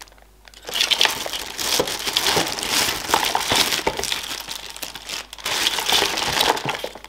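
Clear plastic packaging bags crinkling and rustling as hands pull plastic-wrapped PC fans and cables out of their box, starting about a second in.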